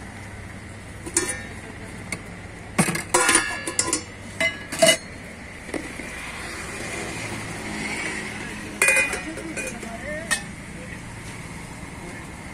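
Steel ladles and lids clinking against stainless-steel serving pots, several sharp ringing clinks scattered through, over a steady hum of road traffic that swells about two-thirds of the way in.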